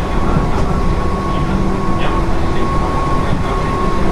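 JR 205 series 0 electric multiple unit with field-added excitation control, running steadily at speed and heard from inside the car. A continuous rumble of wheels on rail carries a steady high tone throughout.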